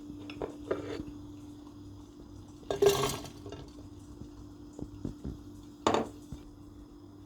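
Cookware and utensils clattering in a kitchen: a few short knocks and scrapes, the loudest about three seconds in and another about six seconds in, over a steady low hum.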